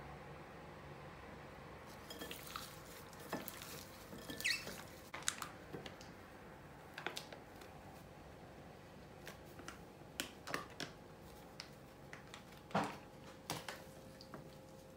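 Kitchen handling sounds: a metal spoon clinking and scraping in a glass bowl of raw chicken wings, and a flour packet rustling as it is shaken over a plate. Scattered light clicks and knocks, the loudest one near the end, over a faint steady hum.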